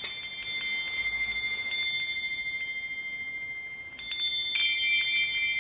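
Woodstock peace chime's hanging metal tubes ringing as it is swung by hand: a few high, clear tones that sustain and overlap, with a louder cluster of fresh strikes about four and a half seconds in.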